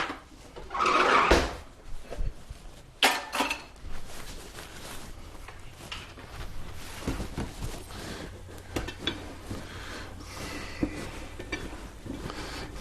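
A utensil stirring thick dumpling dough in a glass Pyrex mixing bowl, scraping and knocking against the glass. The strongest scrapes come in the first few seconds, and softer, irregular ones follow.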